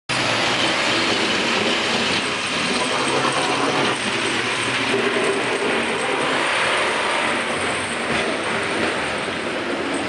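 NovaBus RTS-06 city bus driving slowly through slushy snow toward the listener, a steady dense noise of its tyres and running gear in the slush along with the surrounding traffic.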